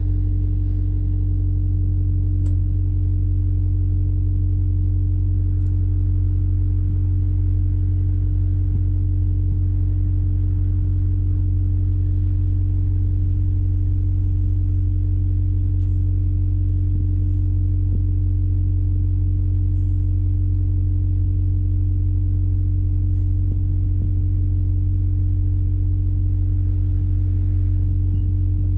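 Komatsu PW160 wheeled excavator's diesel engine running at a steady speed: a constant low hum with a fixed droning tone that does not change.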